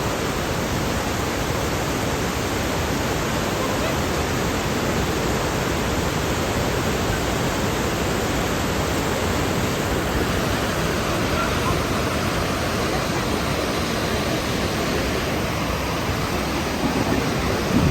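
Steady, even rushing noise at a constant level, like falling water or wind.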